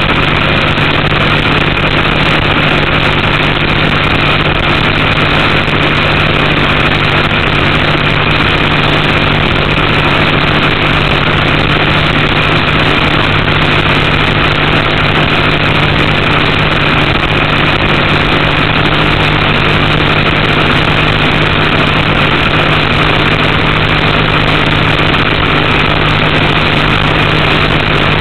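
A race boat's Chevy engine, heard from on board, running at a steady, unchanging pace with no revving. It is held back from full speed because of an oil pressure problem.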